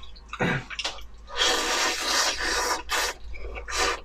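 Instant noodles being slurped close to the mouth: a long, airy, wet slurp about a second and a half in, with shorter slurps before and near the end.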